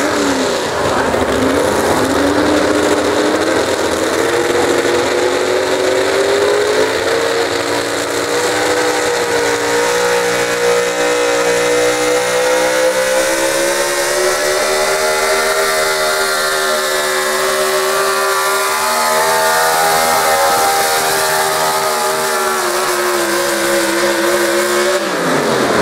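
Supercharged pulling-truck engine at full throttle under load, dragging a weight-transfer sled. Its pitch climbs slowly for about twenty seconds, then falls away sharply near the end.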